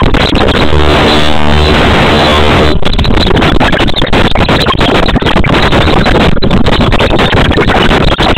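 Loud, dense background music with a held chord from about one second to nearly three seconds in.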